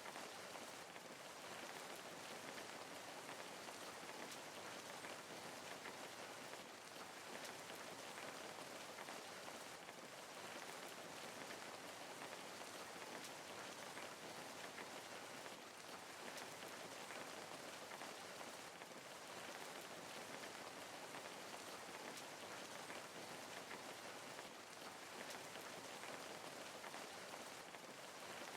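Steady rain falling, a soft even hiss with many small drop patters.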